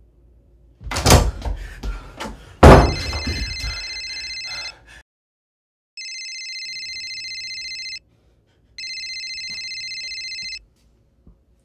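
Two heavy thumps against a wooden door, the second the louder. Then a mobile phone rings three times, a trilling electronic ring, each ring about two seconds long with short pauses between.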